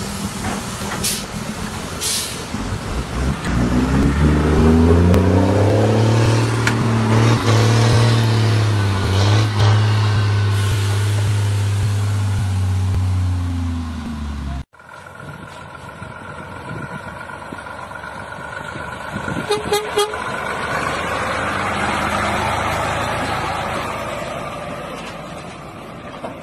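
Diesel truck engine revving up over a couple of seconds, then running hard and steady under load for about ten seconds before the sound cuts off abruptly. After the cut, a truck passes close by with road and wind noise and a few short clicks.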